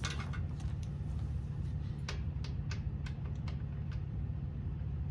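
A series of sharp metallic clicks and taps, a few a second and mostly in the second half, from hand tools being worked on the motorcycle around the transmission plug. A steady low hum runs underneath.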